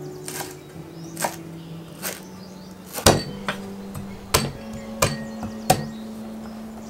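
Kitchen knife slicing lemongrass, then garlic cloves, on a wooden cutting board: single sharp knocks about once a second at first, then quicker and louder strokes from about three seconds in. Soft background music underneath.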